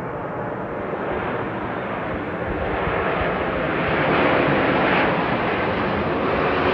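Airplane passing low overhead, its engine noise a steady rushing sound that grows louder throughout.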